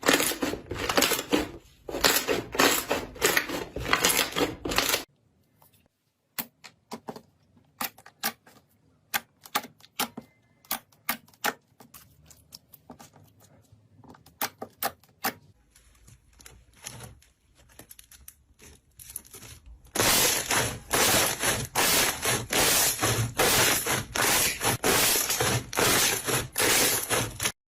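Slime being squished and poked, giving rapid crackling clicks and pops. The clicking thins to scattered pops about five seconds in, then turns dense and loud again about twenty seconds in.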